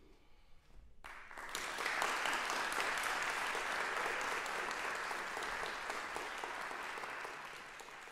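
Audience applauding: it breaks out about a second in, swells quickly to a dense, steady clapping, then slowly tapers off.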